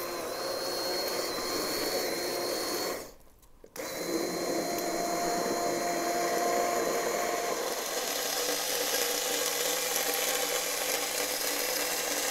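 Immersion blender running in a pot of thick tomato sauce, pureeing it: a steady motor whine with churning. It cuts out briefly about three seconds in, then runs again.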